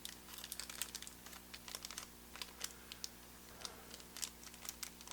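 Small plastic parts bags crinkling and faint irregular clicks of small electronic components being handled.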